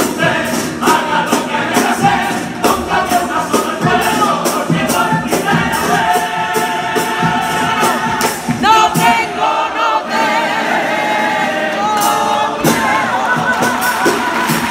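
Male carnival comparsa choir singing in close harmony to Spanish guitars and a steady drum beat, the song closing on a long held chord near the end.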